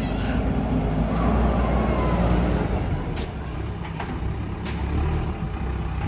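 JCB backhoe loader's diesel engine running steadily as the machine drives and turns, with a faint rising whine about a second in and a few sharp knocks.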